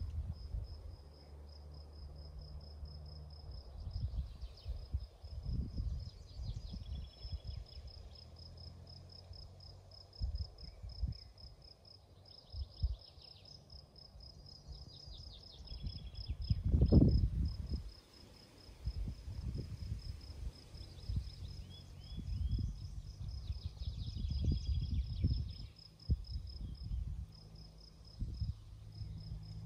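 An insect, cricket-like, chirping in a steady, fast, even pulse throughout, with short bird calls now and then. Irregular low rumbling noise on the microphone comes and goes underneath and is loudest a little past the middle.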